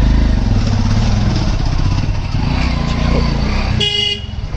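Vehicle engine running steadily on the move, and a horn beeps briefly about four seconds in.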